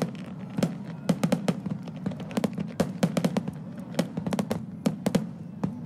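Underwater fireworks bursting at the water's surface: a rapid, irregular string of sharp bangs, a few each second.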